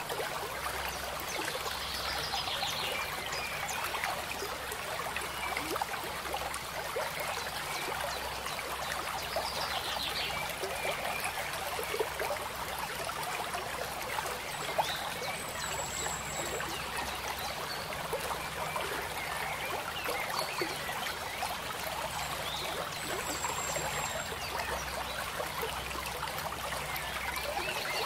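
Steady trickling running-water noise like a small stream, with a few faint high whistles.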